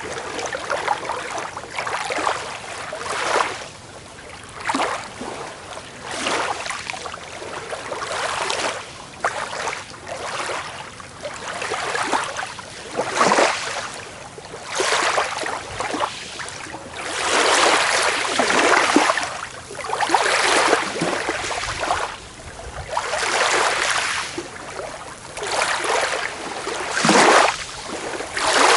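Small waves breaking and washing onto a beach, one surge of water after another every second or two. There is a longer, louder stretch of surf a little past halfway.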